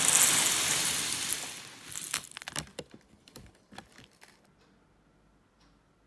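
Dry flake cereal with fruit pieces poured into a bowl: a loud rattling rush for about two seconds, then a scatter of separate pieces dropping and tapping that dies away about four seconds in.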